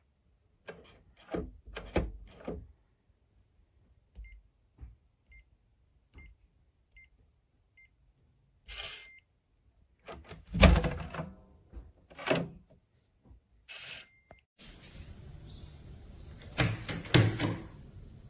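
Electronic touchscreen keypad door lock being operated: some clicks and knocks, then about six short evenly spaced beeps as a code is keyed in, a longer beep, and several loud clunks of the lock and door. A steady rushing noise sets in for the last few seconds.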